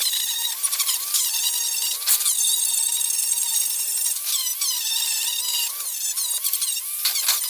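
Small high-speed power tool whining, its pitch dipping and recovering again and again as it is pressed into the work and eased off.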